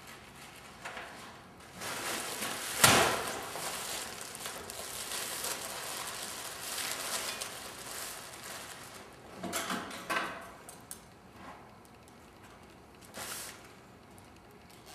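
Handling noises: a sharp knock about three seconds in, then several seconds of rustling and crinkling of a plastic bread bag, with a few shorter rustles and knocks later.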